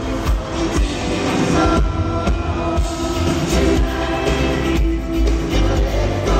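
Live pop band playing through a concert PA, heard from the audience, with a heavy bass beat about twice a second.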